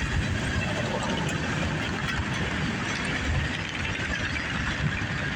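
Loaded CSX grain hopper cars rolling past: a steady rumble of steel wheels on rail, with a constant higher ring from the wheels over it.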